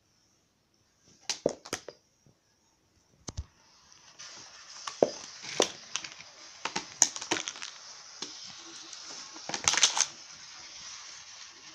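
Plastic toy train track pieces clicking and clattering as they are handled, in scattered knocks, with the loudest cluster near the end. A steady hiss runs underneath from about four seconds in.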